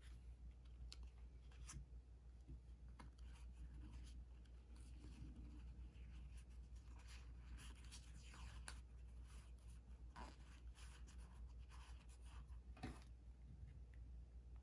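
Faint rustling, sliding and soft clicks of small UNO Pocket playing cards being fanned out and sorted in the hands, with one sharper card snap near the end.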